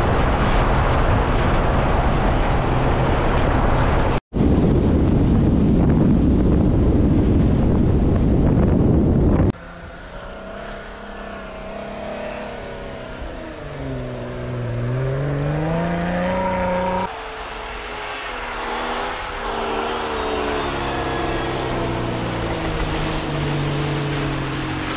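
Jeep Wrangler Rubicon engines heard in a series of cut clips. First comes a loud, rough, noisy roar that breaks off sharply twice. Then the engines run with a pitch that rises and falls as they are revved.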